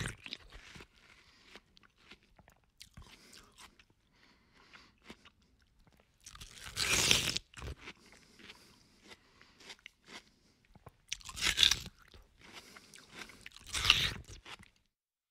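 Mouth sounds of someone eating prickly pear (cactus fruit): chewing with crunching of the fruit's hard seeds, three louder crunches a few seconds apart and softer chewing clicks between.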